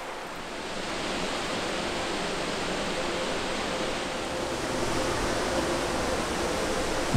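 Rushing water of a mountain creek: a steady hiss that grows a little louder about a second in.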